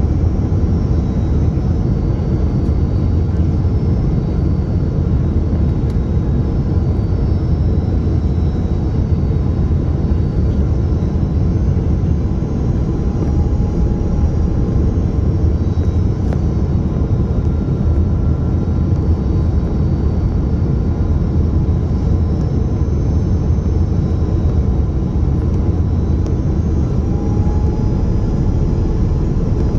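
Airbus A330-300 cabin noise as the airliner taxis after landing: a steady low rumble from the engines and airframe, with faint high whines that come and go.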